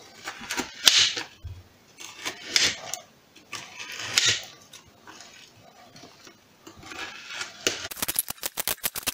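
Kitchen knife cutting through partly frozen pork fat on a cutting board: irregular slicing scrapes and knocks of the blade on the board, then a quick run of short chops near the end as the fat is diced into cubes.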